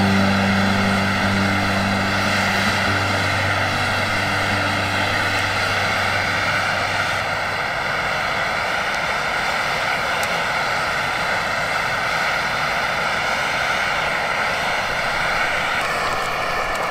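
A portable gas camping stove's burner running steadily at full flame under a pot of stew, a constant loud roar.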